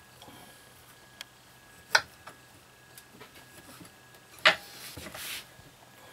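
Kitchen knife cutting broccoli on a wooden cutting board: a few scattered knocks of the blade on the board, two of them sharp and loud, about two seconds in and about four and a half seconds in, the second followed by a short scraping rustle.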